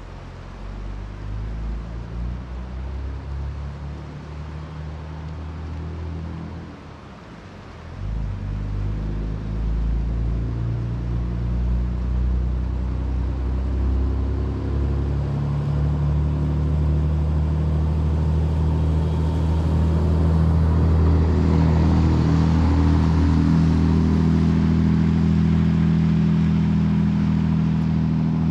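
A motor vehicle's engine running. It grows louder from about a quarter of the way in and holds steady over the last few seconds.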